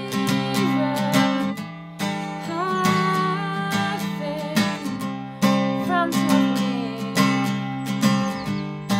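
Acoustic guitar playing slow strummed chords, an instrumental passage between sung lines of a song.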